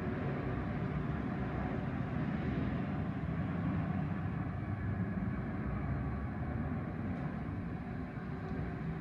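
Steady low rumble of a Boeing 747 freighter's jet engines as it rolls along the runway, with a faint whine above it.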